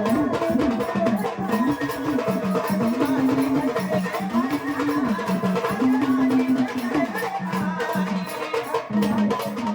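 Marathi devotional song to Krishna: a melody of held notes that step up and down, most likely a woman singing, over steady drum percussion.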